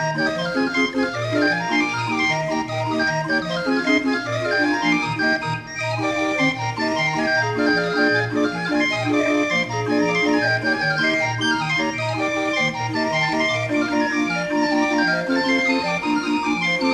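Barrel organ (a 'viole') playing a tune: a bright, reedy melody over regularly pulsing bass notes and chords.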